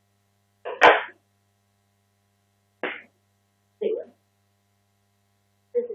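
Steady low electrical hum, broken by a few short non-word vocal sounds, breaths or murmurs, from a woman. A sharp knock comes with the loudest of them, about a second in.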